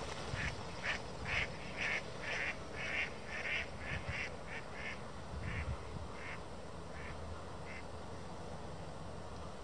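Ducks quacking in a series of short calls, about two a second, getting fainter and further apart until they die away.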